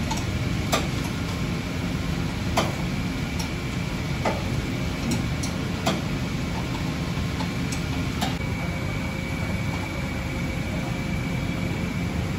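Sharp metallic clicks and clinks at irregular intervals, several seconds apart at times, from hand work on a car's exhaust pipework during fitting of an aftermarket exhaust. Under them runs a steady low hum.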